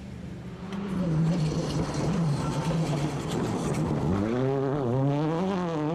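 A World Rally car's turbocharged engine revving. Its pitch holds roughly steady, dips about four seconds in, then swings up and down several times near the end.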